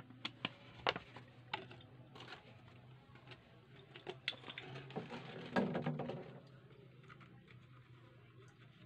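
Light, scattered clicks and taps of an empty plastic water bottle being lifted out of a jar of liquid and handled. About five and a half seconds in comes one louder, crackly rustle lasting under a second.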